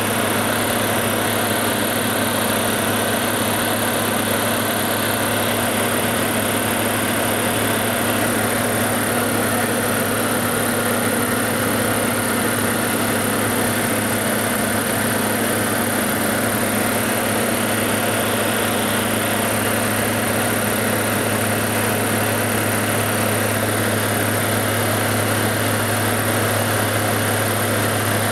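Diamond DA40 light aircraft's piston engine and propeller droning steadily, heard inside the cabin, with a constant low hum beneath a wide rushing noise.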